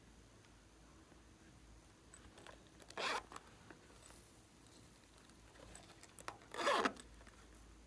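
Hard plastic cases being handled and opened over the slime tray: two short scraping sounds, one about three seconds in and a longer one near the end that falls in pitch.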